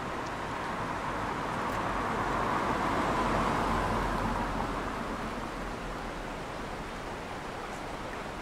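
A vehicle passing by, its rushing noise swelling to its loudest about three seconds in and then fading.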